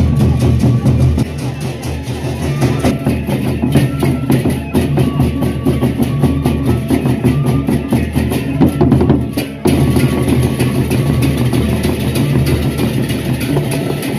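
Gendang beleq ensemble playing: large Sasak barrel drums struck with sticks and hands, together with clashing hand cymbals, in a fast, dense rhythm. The playing breaks off briefly about two thirds of the way through, then picks up again.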